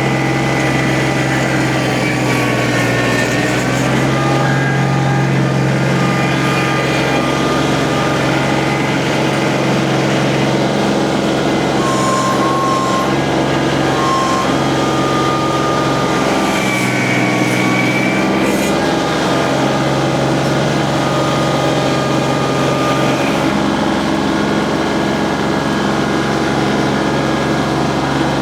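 Loader tractor engine running steadily under load, its pitch shifting briefly twice.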